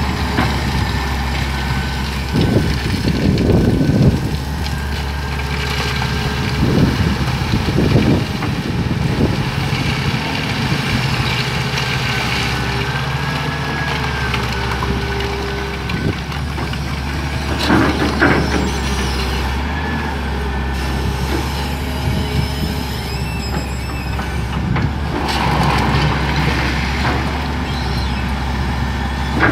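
Caterpillar 375L hydraulic excavator working a rock pile: the diesel engine runs steadily under load. The bucket's rock crunches and clatters several times, loudest a few seconds in and again a little past the middle.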